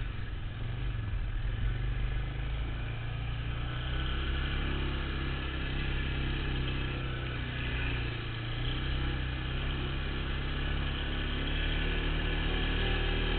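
ATV engine running steadily under way at trail speed, its note shifting slightly a few times with the throttle, over rough, noisy ride sound.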